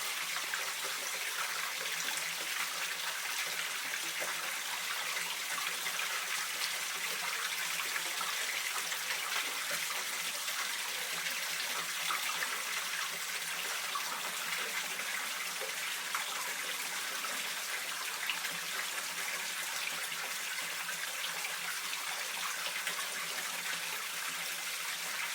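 Mountain stream water running steadily: an even rush with small splashes in it.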